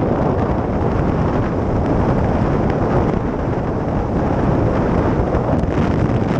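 Wind buffeting a helmet-mounted camera microphone on a dirt bike riding at road speed, a steady rushing noise with the motorcycle's running noise buried in it.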